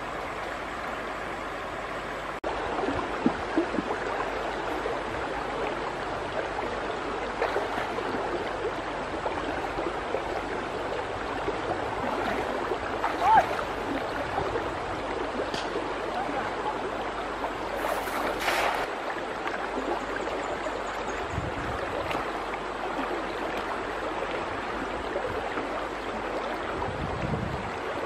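Shallow stony river flowing steadily, with occasional splashes as a person wades and handles a cast net in the water.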